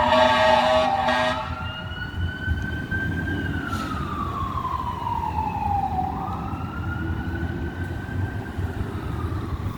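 Fire engine siren wailing, sweeping slowly up and down about twice, with a steady horn blast sounding over it for the first second or so. The truck's engine and road noise rumble underneath.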